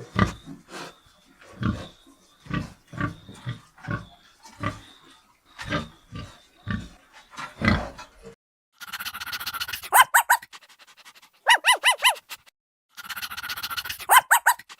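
A pig grunting in short pulses, one or two a second. About eight seconds in, the sound cuts to a different animal giving quick runs of about four short high calls over a hissy background.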